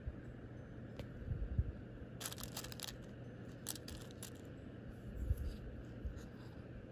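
Clear plastic false nail tips clicking and rattling against one another in a plastic storage case as fingers pick a tip out, in two short bursts of crisp clicks, with a few dull handling knocks.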